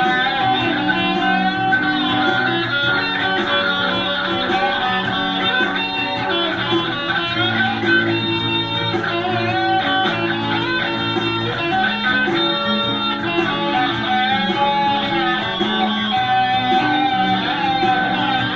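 Guitar music with plucked notes playing without a break.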